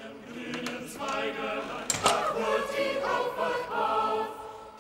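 A choir singing in slow, held notes, with one sharp click about two seconds in.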